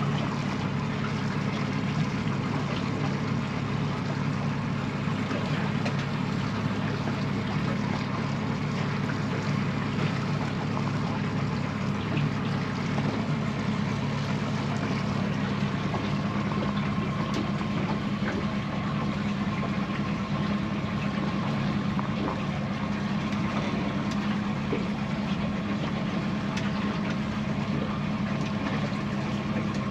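Boat engine running steadily while trolling for pike, an even hum with no change in speed.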